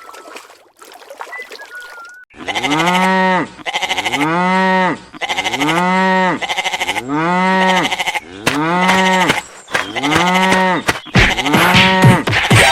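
A drawn-out animal-like call, rising then falling in pitch, repeated the same way about seven times at roughly one-and-a-half-second spacing, starting about two seconds in. Near the end other calls overlap it.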